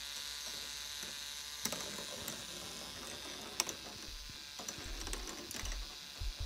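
K'nex ball machine running: a steady motor whir from its lifts, with a few sharp plastic clicks from the balls and track. Dull low thumps come in over the last couple of seconds.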